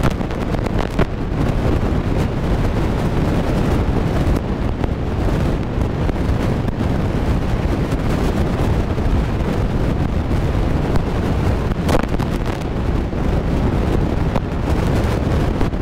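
Wind buffeting the microphone of a camera in a moving car: a steady, loud rumble of wind and road noise. A short click comes about twelve seconds in.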